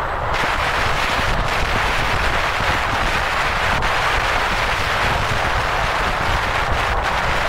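A car driving, with a steady rush of wind and road noise over a low rumble.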